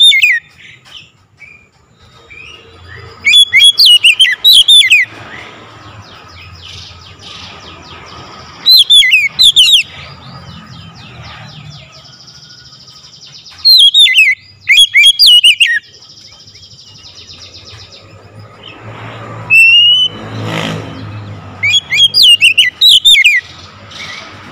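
Male Oriental magpie-robin singing loudly: four bursts of rapid, sweeping whistled notes, each one to two seconds long, a few seconds apart. A brief swell of rushing noise comes between the third and fourth bursts.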